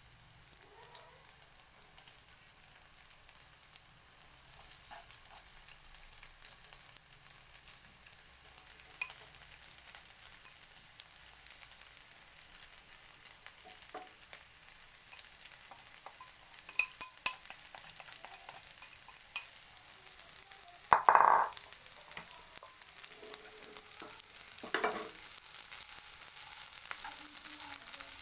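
Rice frying in a hot pan with shallots and garlic, a steady sizzle, stirred with a utensil that scrapes and clinks against the pan now and then. The loudest scrape comes about three-quarters of the way through.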